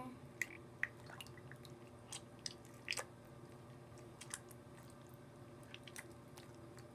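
Slime being kneaded by hand in a sink of hot water: faint wet squishes and squelches with scattered sharp little clicks.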